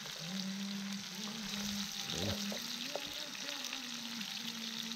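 Cornmeal-coated perch fillets sizzling in oil in a frying pan over a campfire, a steady crackling fry, with a low hum underneath.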